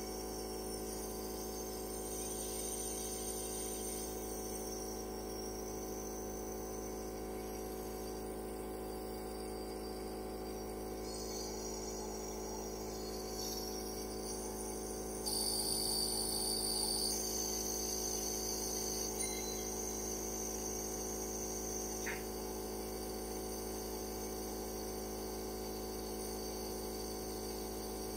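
Nebulizer compressor running with a steady hum. Over it is a shrill, high-pitched chirring that shifts in pitch a few times and gets louder about halfway through.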